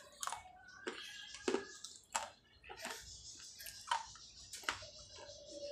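Dried terracotta clay pot being bitten and chewed: about ten sharp, irregular crunches and cracks.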